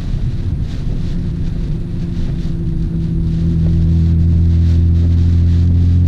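Nissan R32 Skyline GT-R's twin-turbo straight-six (RB26DETT) droning at steady revs, heard from inside the cabin while cruising. It gets louder about halfway through while holding the same pitch.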